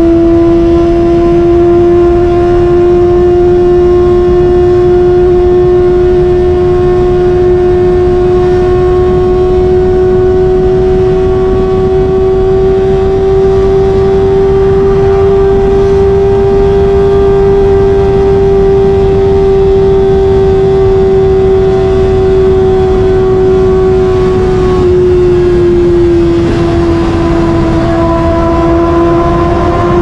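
Kawasaki ZX-25R's 250 cc inline-four engine running at high revs under steady highway cruising, a continuous high-pitched note that climbs slowly, dips briefly near the end and then rises again. Heavy wind rush on the microphone lies beneath it.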